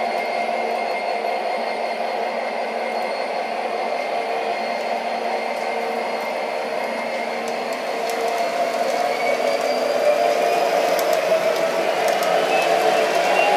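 O gauge model freight train running on three-rail track: a steady rolling rumble of the cars' wheels, growing louder in the last few seconds.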